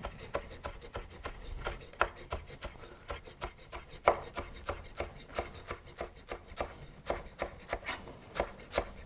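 Chef's knife chopping a bunch of fresh dill on a wooden cutting board: a steady run of knocks, about three a second, each stroke cutting through the herb into the board.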